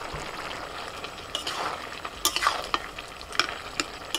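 Metal spatula scraping and stirring greens with fried fish head in a metal kadai, over a steady low sizzle. The scraping strokes start about a second and a half in and come several times.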